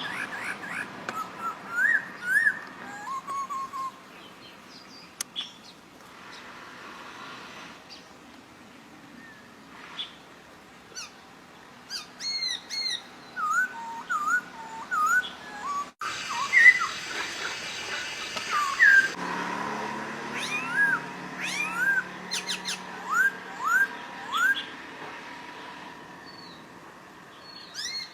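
A Poksay Papua songbird singing runs of short, clear whistled notes, each sliding up or down. The notes come in bursts with quieter gaps, and a fast series of upswept whistles runs near the end.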